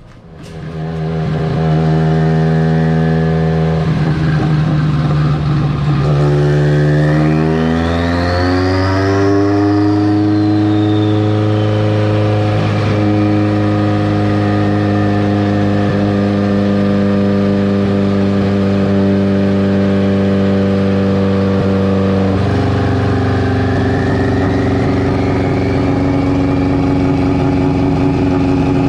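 Subaru EJ25 flat-four engine in a VW Beetle running hard on a chassis dyno. The revs climb over the first several seconds, with a high whine rising and then slowly falling, then hold steady, with a sudden step in pitch about 22 seconds in.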